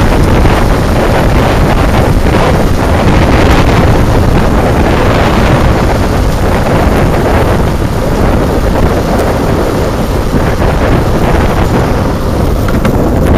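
Wind rushing loudly over the microphone of a downhill longboard rider travelling at speed, mixed with the steady rumble of longboard wheels rolling on asphalt.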